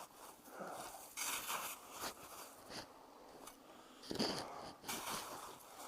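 Snowshoe steps crunching in deep snow: an irregular series of short crunches, with a louder cluster a little past the middle.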